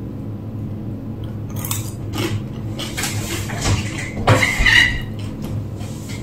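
Someone eating crisp papad: a few sharp crunches and clicks, spaced about half a second to a second apart, the loudest about four and a half seconds in, over a steady low hum.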